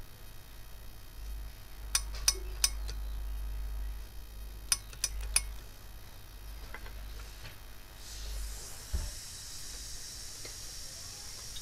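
Hose-fed steam iron pressing a folded fabric strip, with steam hissing from about eight seconds in. Before that come two quick groups of three sharp clicks, about two and five seconds in, and there is a dull thump near nine seconds.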